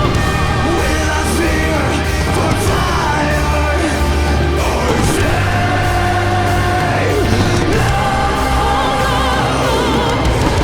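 Loud, dramatic music with a singing voice holding long notes with vibrato over a steady low bass.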